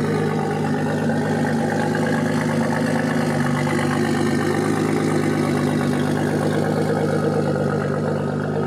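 Nissan GT-R R35's twin-turbo V6 idling steadily through an SBD Super Race exhaust, a straight-piped setup, with an even, unchanging engine note.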